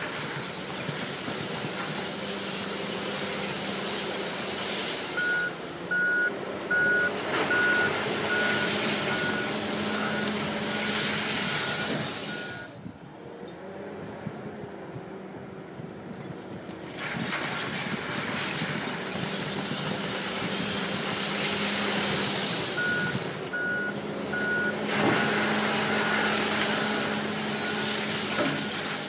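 Komatsu wheel loader working a pile of glass bottles: its diesel engine runs under load with a loud noisy rush of the bucket and glass. Twice, its reversing alarm beeps about once every 0.7 seconds as it backs up. The noise drops away for a few seconds around the middle, then starts again.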